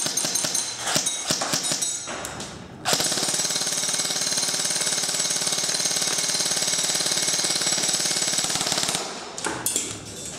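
KWA CQR A3 airsoft electric gun with a KWA 2GX gearbox, on a 9.6 volt battery, firing a quick string of single shots, then a continuous full-auto burst of about six seconds that stops suddenly. A few more single shots follow near the end.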